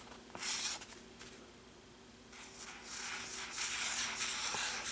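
Felt-tip marker drawing looping spiral strokes on a sheet of paper: a short scratch under a second in, a quiet pause, then a longer run of scratchy strokes from about halfway on.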